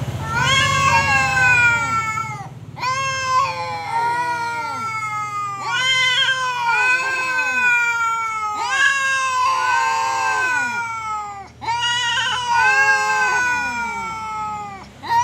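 Two street cats caterwauling at each other in an angry standoff: long, wavering yowls that rise and fall in pitch, about six in a row with short breaks between them.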